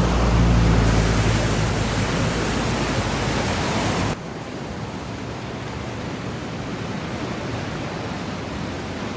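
Floodwater from a flash flood rushing down a river, a steady roar with a heavy low rumble. About four seconds in it drops abruptly to a quieter, even rush.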